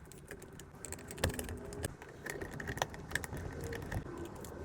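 Small, irregular clicks and taps of plastic parts and contacts being handled, from the opened power-window master switch.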